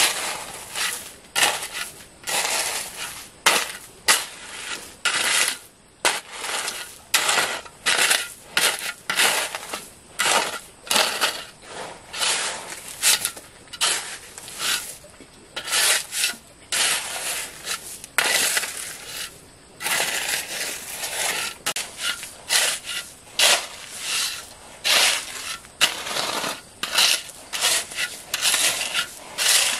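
Metal hoe blade scraping and chopping through coarse gravelly sand, a gritty crunch with small stones clinking, repeated about once a second as the ground is raked level.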